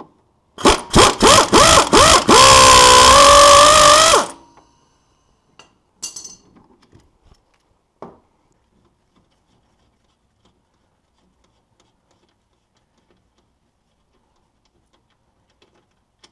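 Pneumatic air ratchet running in several short bursts, then in one longer run whose whine rises slightly in pitch, spinning out the 15 mm top mounting bolt of a Polaris RZR 570 front strut.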